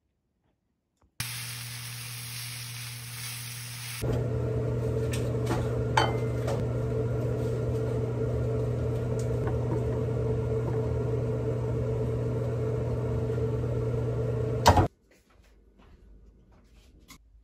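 A kitchen appliance running with a steady electric hum and a few light clicks. The hum steps up louder a few seconds in and cuts off abruptly with a click near the end.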